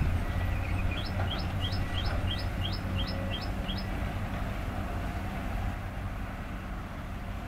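Diesel engine of a heavy excavator running steadily, a low, even drone. From about a second in to about four seconds, a bird repeats a short rising chirp roughly three times a second.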